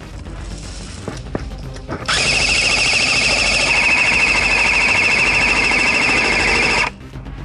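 A&K PKM airsoft electric machine gun firing one long full-auto burst of about five seconds: a steady, fast buzzing rattle of the motor and gearbox cycling, starting about two seconds in and cutting off sharply. A few light clicks come before it.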